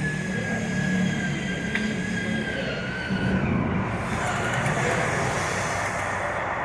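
Steady mechanical rumble with a thin whine and hiss; the hiss and whine drop away a little over halfway through.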